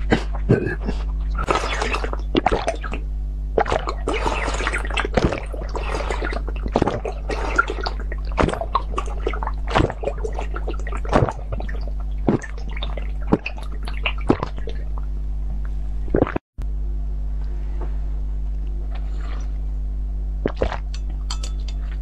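Close-miked drinking: gulps, slurps and swallows of liquid from glass bottles and a glass, with sharp clicks of glass, over a steady low electrical hum.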